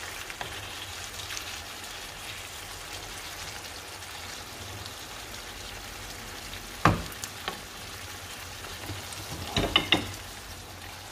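Sweet-and-sour tomato sauce frying with a steady sizzle and crackle in a pan as fried eggplant slices are stirred in with a wooden spoon. A sharp knock comes about two-thirds of the way in, and a quick cluster of knocks comes near the end.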